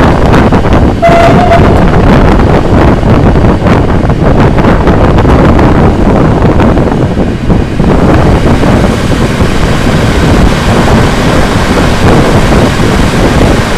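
Wind buffeting the microphone at the open window of a moving passenger train, over the train's rolling noise. A short, high steady tone sounds about a second in.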